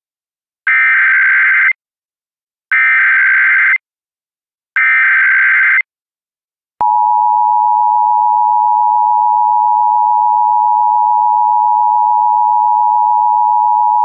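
Emergency Alert System signalling: three one-second bursts of warbling SAME digital header data about two seconds apart, then the steady two-tone EAS attention signal (853 and 960 Hz sounded together), which begins about seven seconds in. Together they announce the start of a new alert, here the cancellation of the AMBER Alert.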